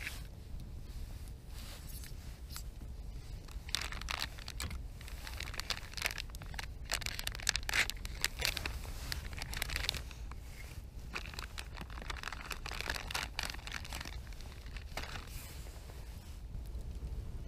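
Plastic sausage packaging being opened and crinkled by hand, in clusters of short crackles, over a steady low rumble.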